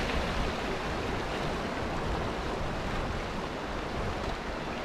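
Sea waves washing against shore rocks, a steady rush of surf.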